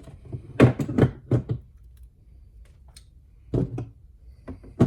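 Pliers being handled and put down: a quick run of metal knocks and clacks about a second in, a few more around three and a half seconds, and a sharp click near the end.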